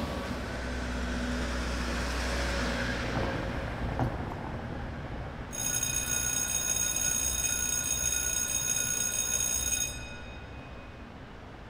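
Street traffic rumbling low, then a steady, high-pitched metallic squeal made of several tones at once starting about halfway in. It lasts about four seconds and cuts off suddenly.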